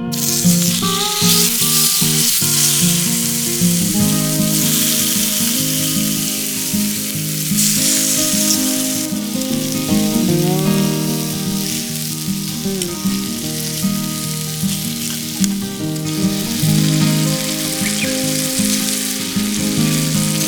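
Meat sizzling on a grill over a wood campfire, a steady loud hiss, with acoustic guitar music underneath.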